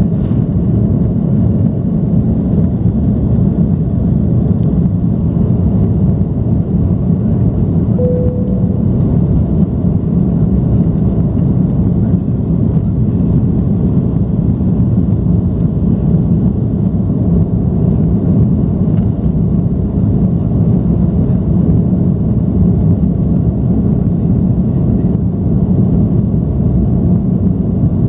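Cabin noise of an Airbus A330-300 at takeoff thrust, heard from a window seat: a steady, loud, deep rumble of its General Electric CF6 engines and the rushing air as the jet lifts off and climbs. A brief single tone sounds about eight seconds in.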